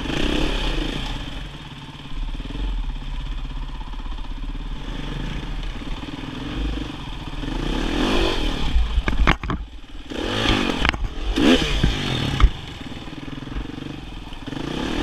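Enduro dirt bike engine running over rough rocky trail, with clatter from the bike over stones. In the second half the revs rise and fall sharply several times, and there is a sharp knock about twelve seconds in.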